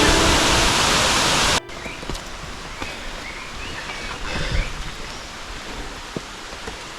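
Loud music over a rushing hiss cuts off abruptly about a second and a half in. What is left is a quieter, even outdoor hiss with a few faint chirps and light clicks.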